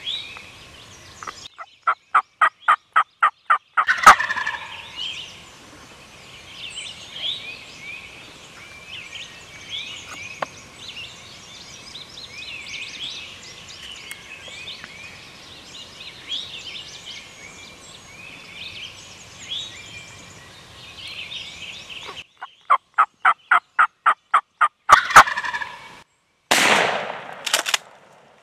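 Wild turkey gobbler gobbling twice, each gobble a rapid rattling run of about two seconds, with songbirds chattering between the gobbles. A sudden loud burst of noise comes near the end.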